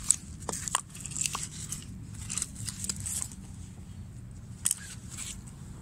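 Crunching, rustling handling noise with sharp clicks and a few short metallic clinks, as nails and iron scraps are pulled off a neodymium fishing magnet. The loudest clicks come right at the start and again about two-thirds of the way through.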